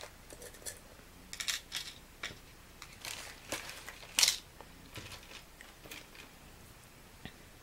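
Plastic zip bags of beads rustling and crinkling as they are handled, with scattered light clicks of small hard pieces; the loudest crinkle comes about four seconds in.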